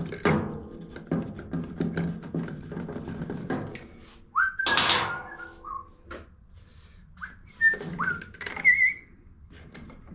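A person whistling a few short notes that glide up in pitch, mixed with small clicks and knocks of handling tools and parts.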